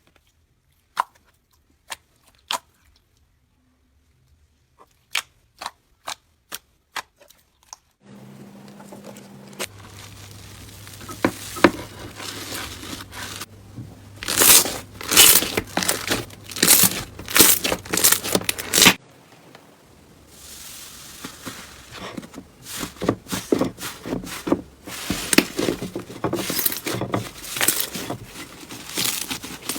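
Crunchy slime being squeezed and pressed by hand, giving dense crackling and crunching full of quick pops. It opens with a few separate sharp clicks about a second apart, and the crackling breaks off for a moment about two thirds of the way through, then starts again.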